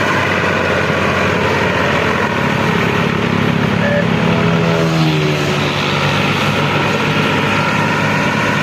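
New Holland 480 tractor's diesel engine running steadily under load as it pulls a trolley heavily loaded with sugarcane. Its note drops slightly about halfway through.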